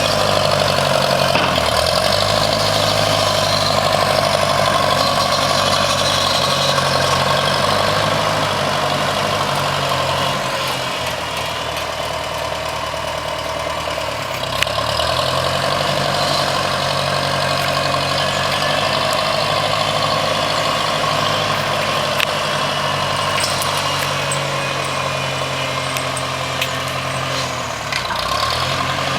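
An engine running steadily, its pitch shifting briefly a few times.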